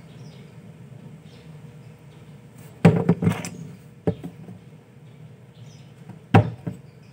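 Sharp knocks and clatters of small tools being handled on a workbench: a quick cluster about three seconds in, a single knock a second later and a double knock near the end, over a steady low hum.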